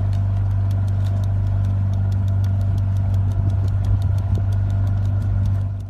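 A steady, loud machine hum with a fast, even ticking, about five ticks a second, that cuts off suddenly at the end.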